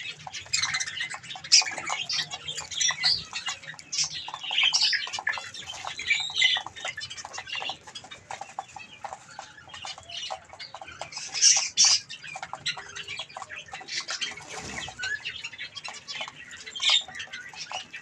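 A flock of small aviary birds, zebra finches and budgerigars, chirping and calling over one another in short, dense bursts. Many quick clicks run through it, from the birds pecking seed. The calling is loudest about eleven and a half seconds in.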